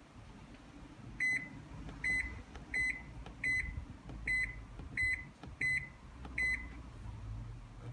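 Haier JW-C55CK fully automatic washing machine beeping: eight short, high electronic beeps about three-quarters of a second apart, over a low hum.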